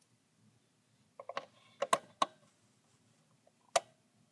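A few sharp clicks and knocks as the plastic animatronic witch is handled: a quick cluster about a second in and one more near the end.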